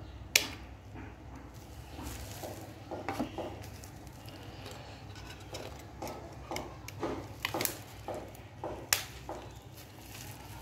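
Hands handling a smartwatch and its plastic packaging: scattered light clicks and rustles, with a sharp click about half a second in and another near nine seconds.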